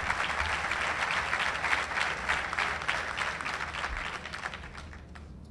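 Audience applauding: a large crowd clapping, dying away over the last second or so.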